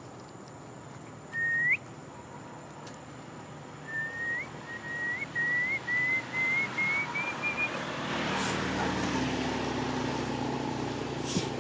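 A bird's whistled call: one rising note, then after a pause a run of about nine short notes, each flicking upward, the run climbing slowly in pitch and getting quicker. From about eight seconds in, a motor vehicle passes with a low engine hum.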